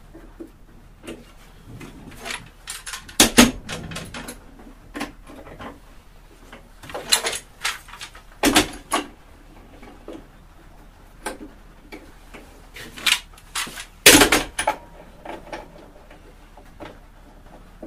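Steel bar clamps being set across the top of a freshly glued wooden beehive box and tightened: scattered clicks and knocks of metal clamp parts against wood and each other, with three louder knocks spread through it.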